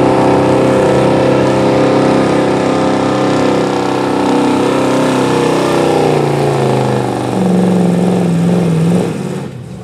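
1972 Chevrolet pickup's gas engine running flat out while pulling a weight-transfer sled. Its pitch sinks gradually over the second half as the revs fall under the sled's growing drag, then the sound drops away suddenly near the end as the pull ends.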